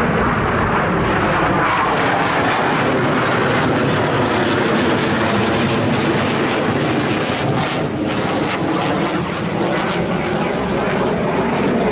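Jet noise from US Navy Blue Angels F/A-18 Hornets in flight: a loud, steady rushing sound that holds without a break.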